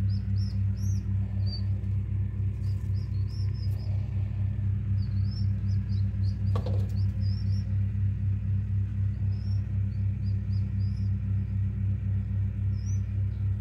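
Newly hatched common pheasant chicks peeping in short, high, thin cheeps, in quick runs throughout, over a loud steady low electrical hum. A single knock about six and a half seconds in.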